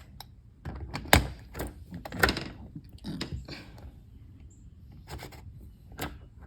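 Irregular clicks and knocks of a newly installed keyed-entry door knob and latch being handled and tried, the loudest a sharp knock about a second in.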